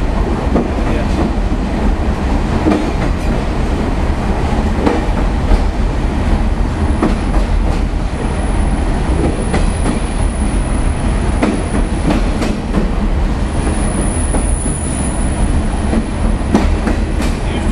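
Train wheels rumbling and clicking over rail joints as the train rolls through a rail tunnel, with a faint high whine through the middle of the stretch.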